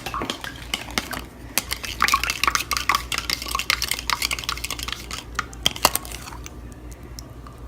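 A utensil stirring and clinking against a mixing bowl as slime is mixed with added solution, with rapid scrapes and clicks that stop about six and a half seconds in.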